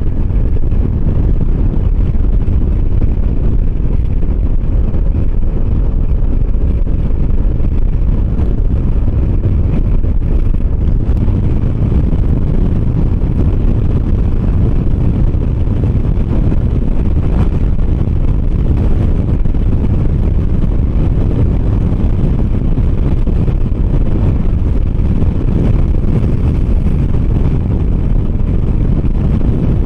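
Steady wind rush and buffeting on the microphone, with the engine and road noise of a 125 cc motor scooter riding along at speed.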